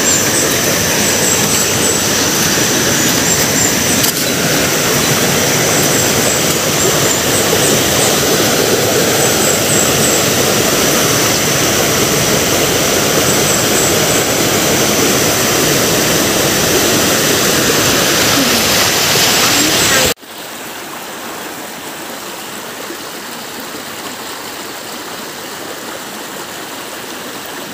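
Rushing river water, a steady loud noise, which drops abruptly to a much quieter level about 20 seconds in.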